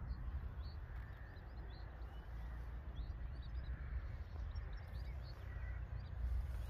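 Outdoor ambience: a steady low wind rumble on the microphone, with small birds chirping faintly throughout.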